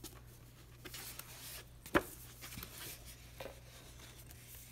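Pages of a large softcover book being turned by hand: paper rustling, with one sharp snap of a page about two seconds in and a few lighter ticks after it.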